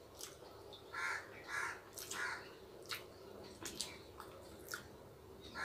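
A crow cawing three times in quick succession about a second in, and once more at the end, over soft lip smacks and clicks of people eating rice and curry by hand from plates.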